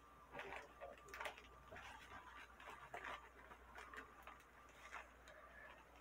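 Metal spoon scraping and tapping in a glass baking dish while spreading brown sugar over chopped banana blossom: faint, irregular scrapes and clicks, several a second.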